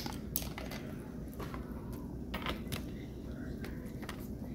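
Scattered light clicks and taps of eating at the table, such as chopsticks on a plate and mouth sounds, over a steady low hum.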